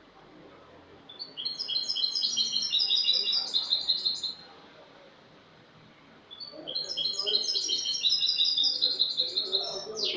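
European goldfinch (jilguero) singing clean song: two long phrases of rapid, high twittering notes, each about three seconds, with a quick downward-sliding note near the end.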